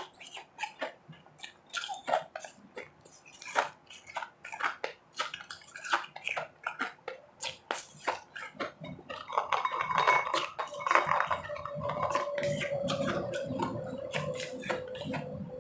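Close-up crunching and chewing of refrozen powdery snow ice in the mouth, many sharp crunches in quick succession. About two-thirds of the way in the chewing turns denser and fuller, and a steady low tone comes in alongside it.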